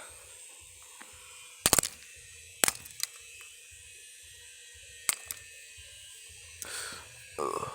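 A few sharp clicks or knocks, about five over the first five seconds, then a short rushing noise near the end.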